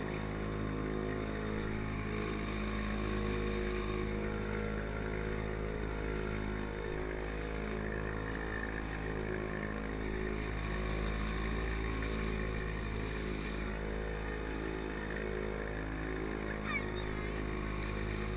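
Villiers two-stroke engine of a Pengor Penguin amphibious ATV running steadily as the machine moves through the water, with water splashing against its hull.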